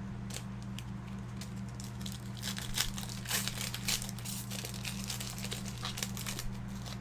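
Light plastic crinkling and rustling of trading-card packaging and sleeves being handled, in scattered short crackles over a steady low electrical hum.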